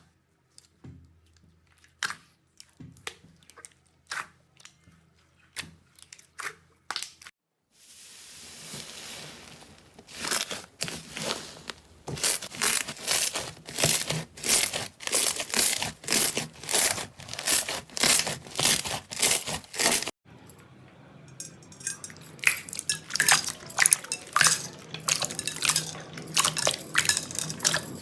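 Slime being handled and squeezed, making sticky pops and clicks, then rhythmic squishing strokes about twice a second from around ten seconds in, then crackling and popping again near the end.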